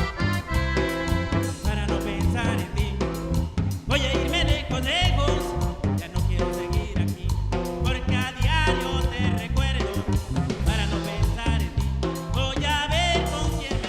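Norteño cumbia band playing: accordion melody over a steady bass and drum beat.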